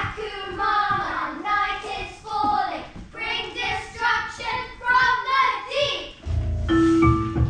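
Performers singing in short sung phrases. About six seconds in, instrumental music comes in with a steady deep bass and held higher notes.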